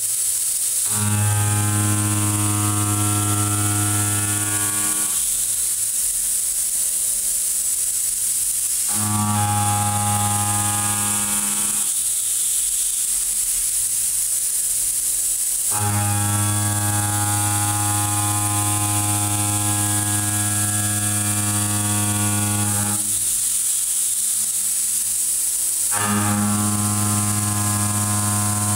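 Kennametal Mill 4-12 KT tangential shoulder mill roughing 4140 steel in a DMG MORI DMU-50: a steady low hum with a ladder of overtones while the inserts are in the cut, heard in four spells of a few seconds each, breaking off between passes. A steady high hiss runs under it throughout.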